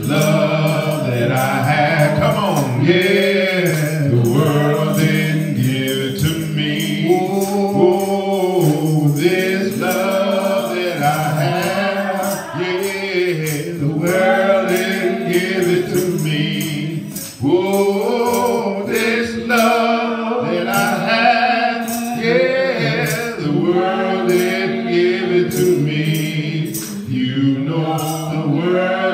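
A gospel hymn sung by a man into a microphone, holding and sliding long notes, with other voices joining and a steady percussion beat keeping time.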